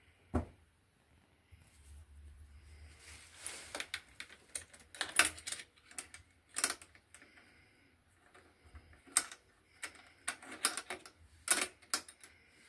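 Metal toggle latches on an electric kiln's lid being worked by hand: a single knock about half a second in, then irregular clusters of sharp metallic clicks and clacks.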